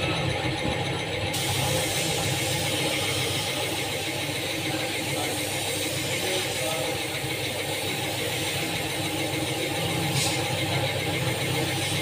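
Air spray paint gun hissing as it sprays, switching on about a second in and running on, over a steady machine hum.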